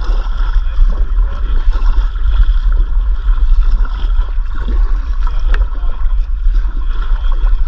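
Wind rumbling on an action camera's microphone over water lapping and trickling around a kayak, with a single sharp click about five and a half seconds in.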